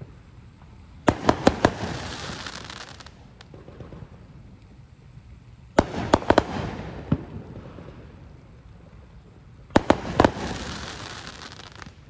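Aerial fireworks going off in three volleys, about one, six and ten seconds in. Each volley is a quick string of sharp bangs followed by a noisy tail that fades over a second or two.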